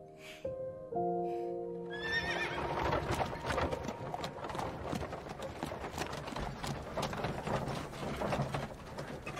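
Soft instrumental music with held notes, cut off about two seconds in by a horse whinnying. Its hooves then clip-clop steadily.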